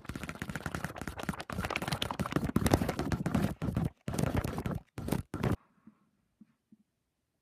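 Loud, close rustling and scraping of a book's paper pages being handled: a fast run of rubs with brief breaks, stopping abruptly about five and a half seconds in.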